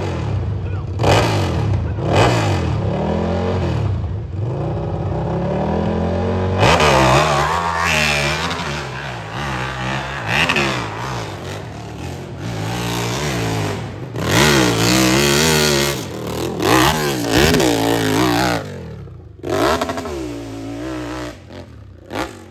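Hillclimb dirt bike engine revving hard under full throttle up a steep sand hill, its pitch surging up and down again and again as the rear wheel spins and grips. The engine drops off in short gaps near the end.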